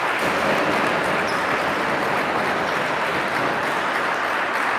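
Steady background din of a sports hall, an even rushing noise with faint voices mixed in.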